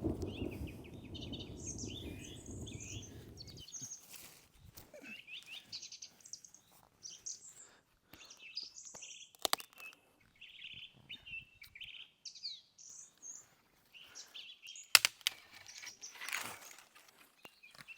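Rainforest birds chirping and calling, with a low rumble that stops abruptly a few seconds in. A few sharp knocks come later, the loudest about 15 seconds in.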